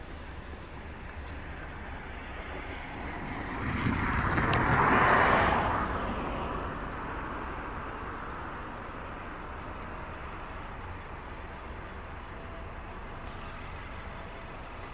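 A road vehicle driving past, its tyre and engine noise swelling to a peak about five seconds in and fading away over the next couple of seconds.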